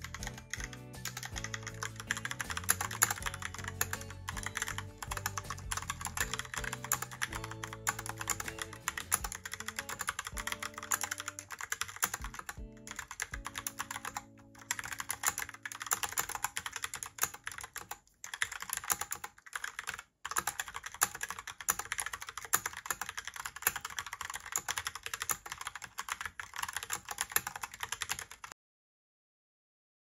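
Fast typing on a Logitech Pop Keys mechanical keyboard: a dense, rapid clatter of keystrokes on its round typewriter-style keycaps. The typing stops suddenly shortly before the end.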